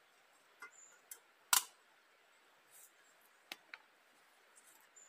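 A few scattered sharp clicks and knocks of small objects being handled, the loudest about a second and a half in with a brief ring after it.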